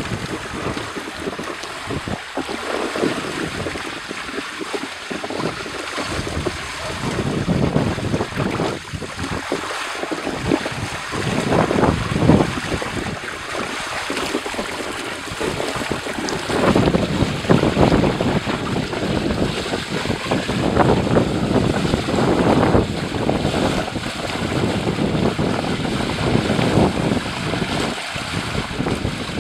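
Wind buffeting the microphone in uneven low gusts over the rushing, swirling water of a whirlpool.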